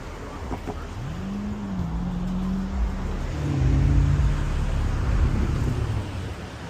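A motor vehicle passing: its engine note rises in pitch and holds, then drops lower as it comes closest, over a low rumble that is loudest about four seconds in and fades near the end.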